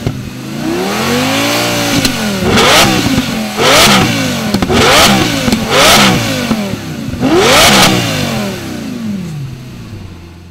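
Lamborghini Gallardo's V10 engine being revved while stationary: one slower rev rising and falling, then five quick throttle blips, each snapping up in pitch and dropping back toward idle. It settles at idle and fades out near the end.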